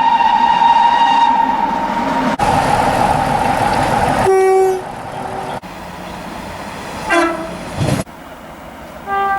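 Several train horn soundings cut together. A long, steady, high horn note stops abruptly about two and a half seconds in, followed by a stretch of loud noise. Then come brief lower horn blasts, one of which slides down in pitch as it fades.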